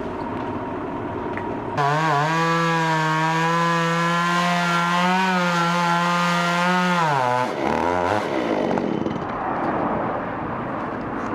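Chainsaw engine throttled up and held at high speed for about six seconds, its pitch wobbling slightly as it cuts wood, then released so the pitch drops away.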